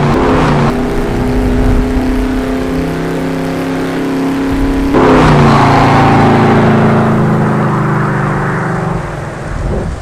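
Car engine running hard at high revs, its pitch stepping between steady notes, with two sudden surges of rushing noise, at the start and about five seconds in; it fades near the end.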